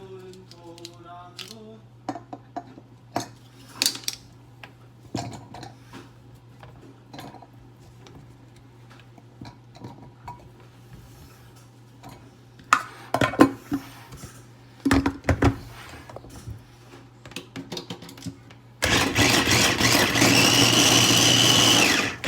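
Dishes and utensils clinking and knocking over a low steady hum, then about 19 seconds in an electric blender starts and runs loudly for about three seconds before cutting off suddenly.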